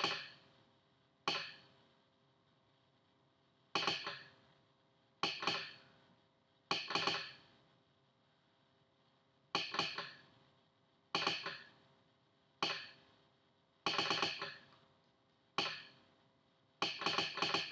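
Arduino-controlled telegraph sounder clicking out a Morse code message. The sounder makes short groups of sharp metallic clicks, one group per letter, each with a brief ringing decay, with pauses of one to two seconds between groups.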